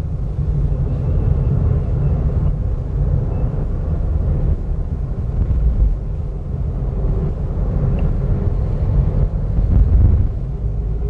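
Steady low rumble of engine and road noise inside a manual car as it drives along.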